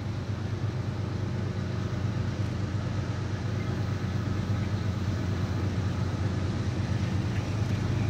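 Diesel locomotives of an approaching train, a steady low engine rumble growing slowly louder.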